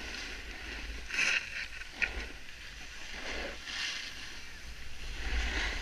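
Wind rumbling on a helmet-mounted camera while riding downhill, with hissing scrapes of edges over packed snow in several surges and a sharp click about two seconds in.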